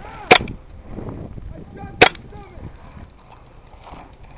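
Two sharp single cracks of airsoft gunfire about a second and a half apart, the first a little after the start.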